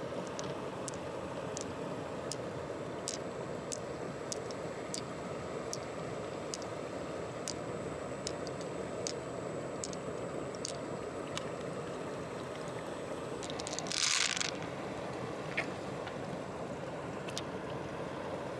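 Small hard pearls clicking one at a time as they are picked out of a giant freshwater mussel and dropped into a palm, about one click a second, over a steady background hiss. A brief louder rush of noise about three-quarters of the way through.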